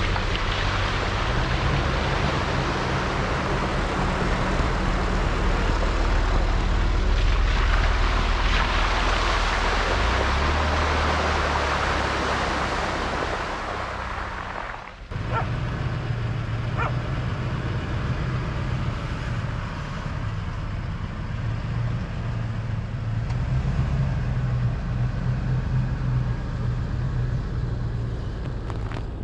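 Lexus GX460's V8 engine running as the SUV drives off-road over a dirt trail, with a broad rushing noise over it in the first half. The sound drops out briefly about halfway through, then the engine carries on as a steady low hum while the SUV crawls up a rutted dirt slope.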